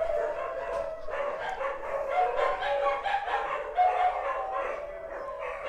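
Dogs howling and whining: long, wavering drawn-out notes overlapping one another, broken by short yelps.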